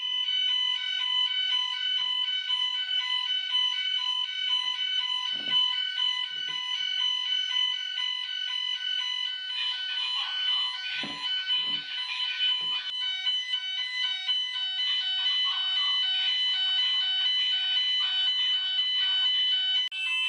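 Gent fire alarm sounders going off for a system test. They start abruptly with a steady high tone over several evenly pulsing lower tones, and a few soft knocks sound under them.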